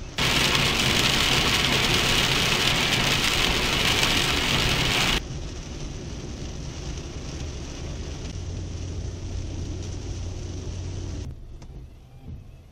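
Heavy rain pelting a car's roof and windshield, heard from inside the cabin, loud and steady for about five seconds. It then cuts suddenly to quieter rain and wet-road noise from the moving car, which drops again near the end.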